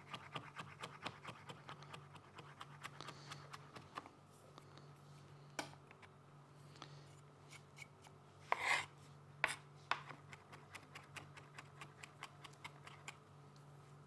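Chef's knife mincing garlic on a plastic cutting board: a fast run of light chopping taps, about five a second, then slower, scattered taps with a few louder strokes in the second half.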